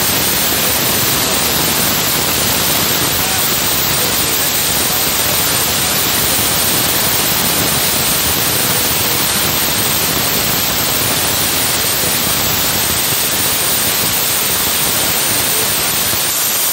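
Oxy-acetylene powder spray welding torch with a large tip burning with a steady, loud hiss as it preheats a steel wheel hub to red heat.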